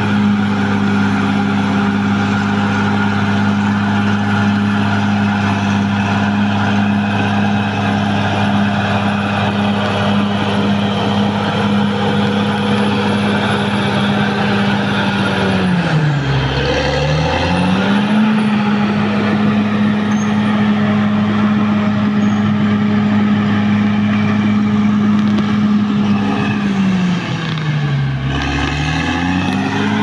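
Caterpillar D6R XL bulldozer's diesel engine running steadily at high revs while the machine pushes mud with its blade. Twice, about halfway through and again near the end, the engine note drops sharply and then climbs back up.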